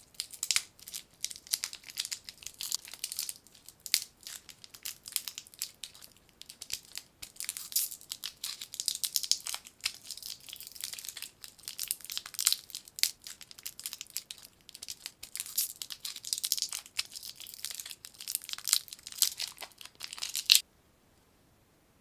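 Crinkly lollipop wrappers being handled, crumpled and torn open, in dense irregular crackles that stop abruptly near the end.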